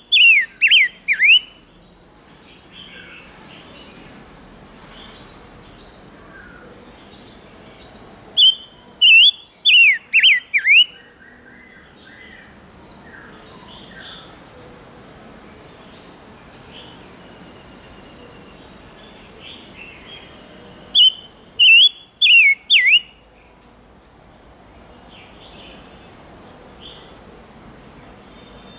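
Ngũ sắc songbird calling as a decoy bird: three bursts of four or five loud, sharp notes sweeping downward, roughly ten seconds apart, with fainter chirps in between.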